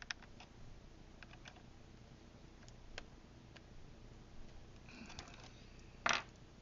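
Light clicks and taps of small plastic parts being handled while a loose servo linkage on a foam RC airplane is tightened, with a short louder scrape about six seconds in.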